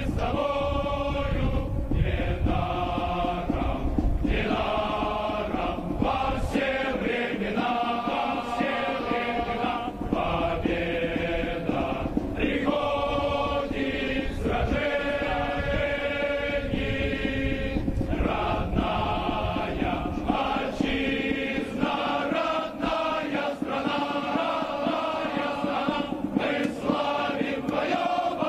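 Massed male voices of a military band singing a song together in chorus, in phrases with short breaks between them.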